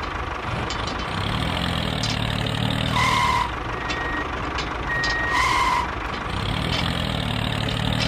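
A vehicle engine humming with a short beep sounding twice, about two and a half seconds apart, like a reversing alarm.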